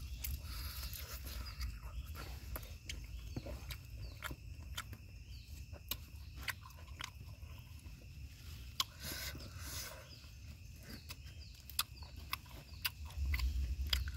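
A person biting and chewing grilled pork tripe stuffed with minced meat, heard as many short, irregular mouth clicks and smacks.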